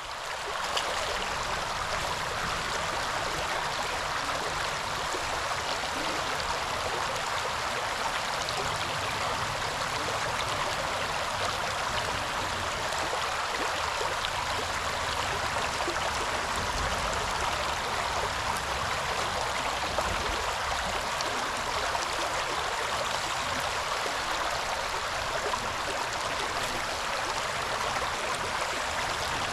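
River water running steadily, an even rushing sound.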